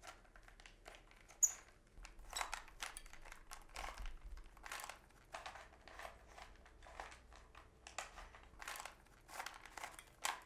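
Rubik's Cube layers being twisted by hand: faint plastic clicks and clacks in a quick, irregular run, a few a second.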